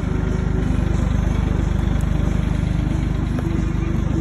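Tractor engine running steadily while driving, a low, fast, even chugging.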